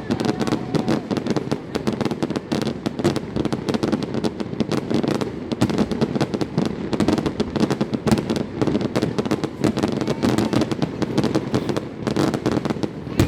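Aerial fireworks going off in a dense, unbroken run of many bangs a second, with crackling.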